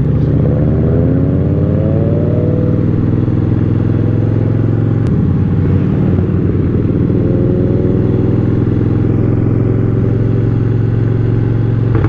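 Harley-Davidson V-twin motorcycle engine heard from the rider's seat, pulling away under throttle: its note rises for the first few seconds, a sharp click comes about five seconds in, then the note climbs again and holds steady at cruising speed.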